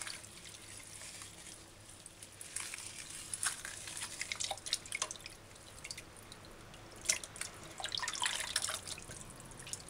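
Water sloshing, splashing and dripping in a stainless steel pot as hands knead and pull apart a clump of still partly frozen chicken gizzards, in irregular bursts of small splashes that are busiest near the middle and again toward the end.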